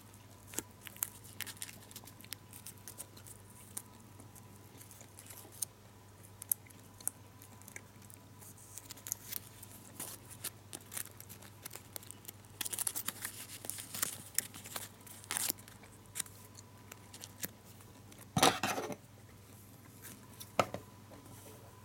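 Foil-backed paper gum wrapper crinkling and clicking as fingers fold and crease it, in scattered small rustles with a louder crinkle near the end.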